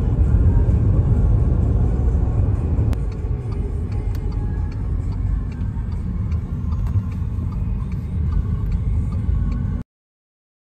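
Road and engine noise heard inside a moving car: a steady low rumble with a few light ticks. It cuts off suddenly near the end.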